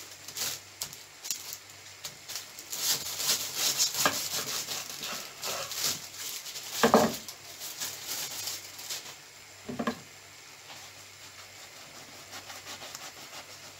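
Crinkling rustle of a plastic bread bag being handled, with two short knocks about seven and ten seconds in, over a faint low hum.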